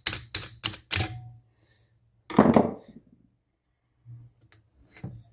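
Hand tools knocking on small engine parts while a piston is being freed from its connecting rod: a quick run of sharp metallic taps in the first second, then one louder, duller thunk about two and a half seconds in, and a few light clicks near the end.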